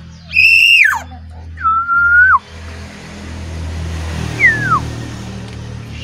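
Black-naped oriole (kepodang) giving three loud, clear whistled notes: a high note that drops at its end, then a lower, level note that drops at its end, and about four seconds in a short falling whistle.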